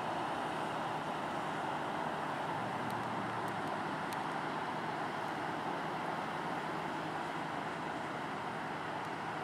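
Steady low engine hum from the self-unloading bulk carrier Sam Laud under a broad, rushing hiss of water along its hull.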